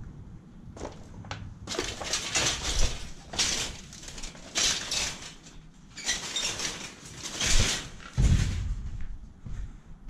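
Footsteps crunching over gritty debris and rubble, a handful of slow steps about a second apart, with a low thump near the end.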